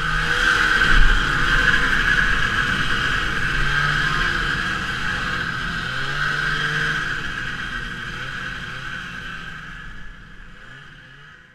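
Vintage race snowmobile engine running hard, its revs rising and falling, under a steady high whine. The sound slowly fades out near the end.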